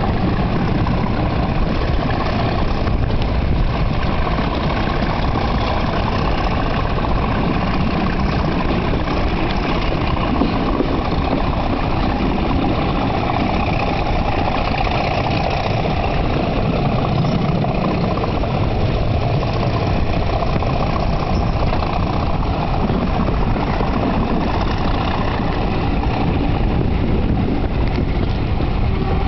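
Class 37 diesel locomotive working hard at full power up a steep gradient, a steady unbroken engine thrash heard from the window of a carriage it is hauling.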